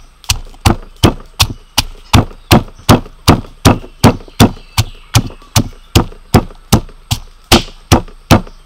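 Stone mortar and pestle pounding garlic cloves and chilies: steady, evenly spaced strikes, about two and a half a second.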